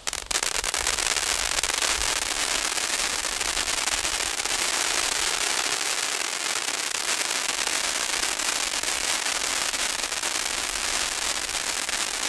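Gaoo F25 Crackling volcano fountain burning with a dense, steady crackle of countless tiny pops over a hiss: really fierce crackling.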